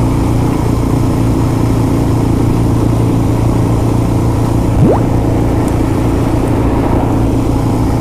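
Suzuki DR-Z dual-sport motorcycle's single-cylinder four-stroke engine running steadily at an even cruising speed, heard from on the bike. About five seconds in, a short chirp sweeps quickly upward over it.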